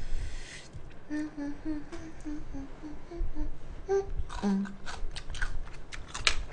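A woman humming a short tune of about ten quick, clipped notes, then two brief vocal sounds, followed by a string of short clicks and rustles from handling things at the table.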